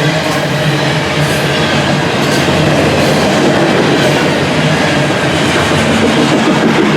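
Train passing overhead, a loud steady rumble heard from inside the tunnel beneath the tracks.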